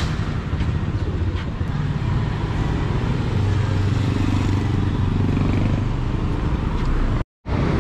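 A nearby motor vehicle's engine running steadily amid street traffic, with a low hum. The sound cuts out briefly near the end.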